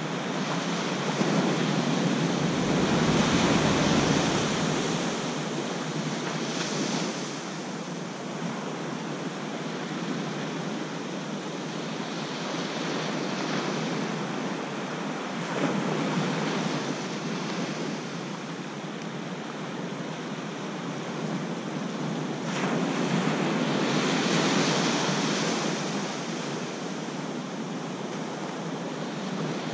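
Ocean surf breaking and washing up a sandy beach: a steady rush of water that swells and fades, loudest in about three surges.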